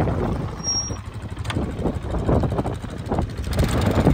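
2002 Polaris Sportsman 500 ATV's single-cylinder four-stroke engine running at low speed as it rolls over gravel, dropping quieter in the middle and picking up again near the end. A short high chirp sounds about a second in.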